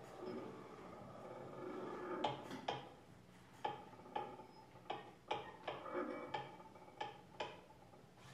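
Improvised music played on small objects at a tabletop: a soft scraping, rubbing texture, then from about two seconds in a string of sharp, irregular taps, each ringing briefly.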